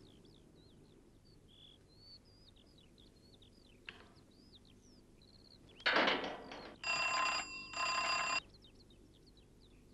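A doorbell rung in two bursts, each under a second, about seven seconds in, just after a short rustling noise. Birds chirp faintly throughout.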